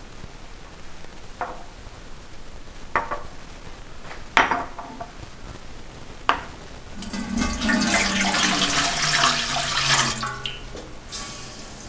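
Four sharp clinks spread over the first six seconds, then water running from a tap for about three and a half seconds.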